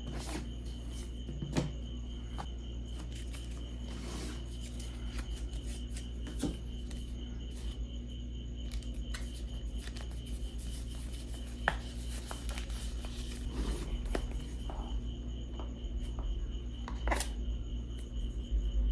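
Packaging being handled and opened by hand: scattered light clicks, rubs and short tearing scrapes of the box and its wrapping, with one sharper click about twelve seconds in and another near the end.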